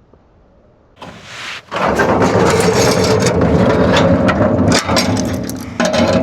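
Loud rushing, rumbling noise with many clicks and knocks, as picked up by a cheap action camera's built-in microphone. It starts after about a second of near quiet and is at full strength from about two seconds in.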